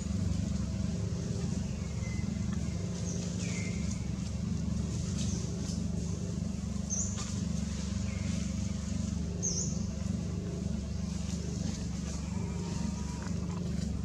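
A steady low drone, like a motor running nearby, with short, high-pitched chirps and quick falling calls every couple of seconds.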